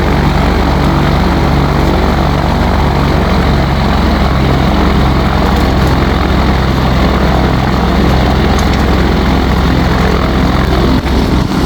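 Ultralight aircraft's engine and propeller running steadily and loudly, with a constant low drone.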